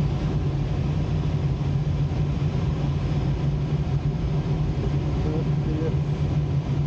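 Steady in-flight cockpit noise of a two-seat glider: rushing air with a constant low hum.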